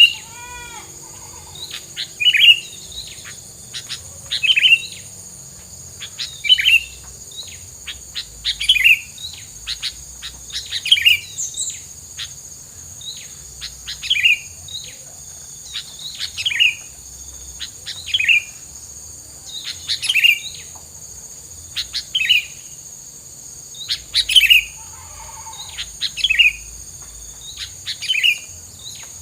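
A tilang songbird singing energetically, repeating a short sharp chirping phrase about every two seconds. A steady high insect whine runs underneath.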